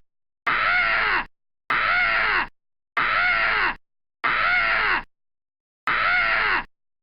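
A person's short 'Ahhh!' scream sound effect, the same clip played five times in a row. Each scream lasts just under a second, starts with a click and cuts off abruptly.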